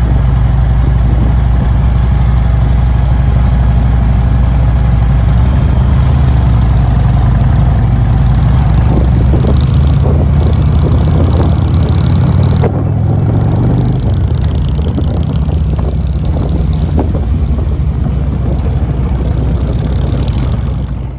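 Motorcycle engines running steadily with a deep, low sound, heard close up from a motorcycle riding in a group. The sound gets a little quieter about thirteen seconds in, then cuts off suddenly at the end.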